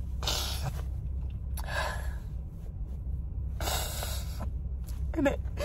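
A woman sniffling while crying: three sharp sniffs about a second and a half apart, then a short catch of the voice near the end, over a low steady hum.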